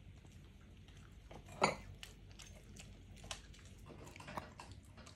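Toy poodles biting and chewing pieces of cooked, deboned chicken wing: faint scattered wet clicks and snaps, with one louder click about a second and a half in.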